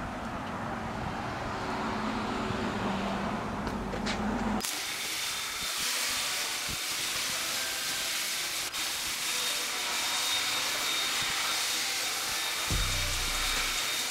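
Pressure washer spraying water onto a dirt bike: a steady, dense hiss of spray that starts suddenly about five seconds in.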